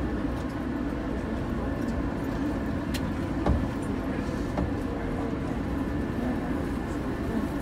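Inside a JR 185 series electric train running along a station platform: a steady low rumble of wheels and underfloor equipment, with a couple of sharp clicks from the track about three seconds in.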